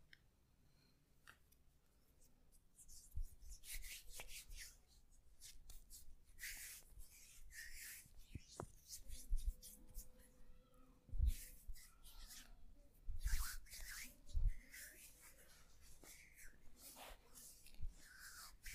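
Hands rubbing and stroking over a person's back during a massage: irregular swishing strokes, with a few dull thumps in the middle stretch.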